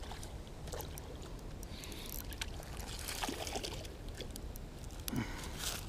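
A hooked flathead splashing lightly at the water's edge as it is brought in on a light rod. Scattered small clicks and rustles come through over a low steady rumble.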